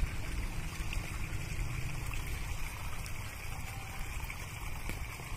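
Hand tractor's single-cylinder diesel engine running steadily with a low, uneven rumble through a chrome wolf-head aftermarket exhaust tip, alongside the wash of water in the flooded paddy.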